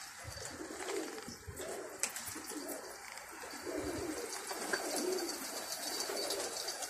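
Domestic pigeons cooing, many low coos overlapping from several birds at once.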